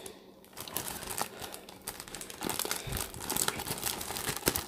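A glossy sticker sheet being handled, crinkling and rustling with many small crackles, starting about half a second in.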